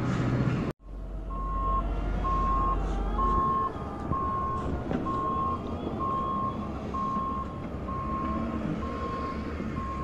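The reversing alarm of a snow-clearing loader, beeping at an even pace, about one beep every three-quarters of a second. Under it is the machine's engine running with a low rumble, heavier for the first few seconds.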